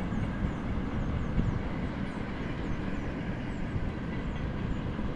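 Steady low rumble of a train running along a nearby railway line, with faint short high chirps over it.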